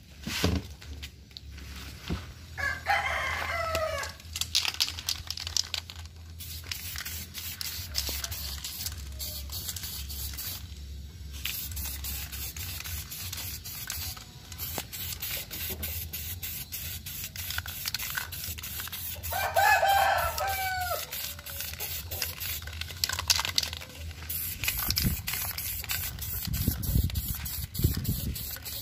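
A rooster crows twice, about three seconds in and again about twenty seconds in, over stretches of hissing from an aerosol spray paint can.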